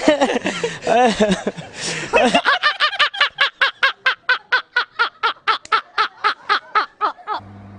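Two men laughing hard, first in swooping whoops, then settling into a rapid ha-ha-ha of about four to five bursts a second. Near the end the laughter cuts off abruptly and a low steady hum remains.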